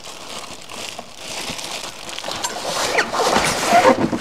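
Plastic wrapping crinkling and packing rubbing against cardboard as a heavy boxed miter saw is lifted out. The rustling grows louder toward the end, with a few short squeaks.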